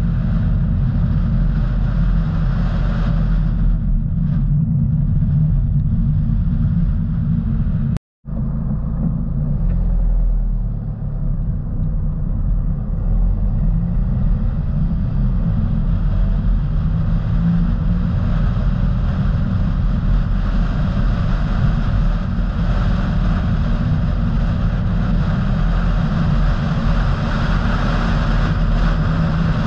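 A car driving along a road: a steady low engine and road rumble with tyre hiss that grows stronger in the second half, broken by a brief total dropout about eight seconds in.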